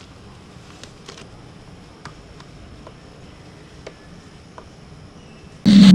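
Faint scattered ticks and crinkles of an old motorcycle sticker decal being peeled off a plastic fairing by hand. Near the end a loud glitchy intro sound with a low hum cuts in suddenly.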